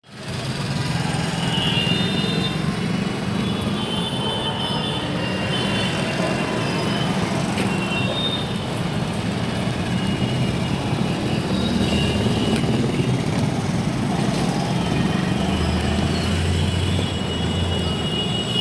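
Steady low rumble of vehicle noise, with a few short high-pitched squeals or tones on top.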